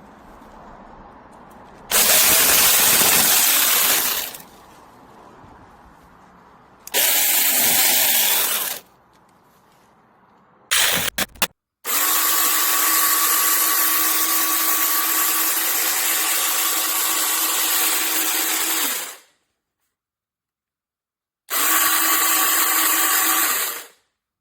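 Cordless battery chainsaw running in several separate bursts, the longest about seven seconds, with a steady motor whine; each burst starts and stops abruptly.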